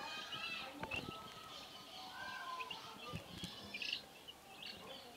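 Young chicks peeping faintly while they forage, a scatter of short, high chirps.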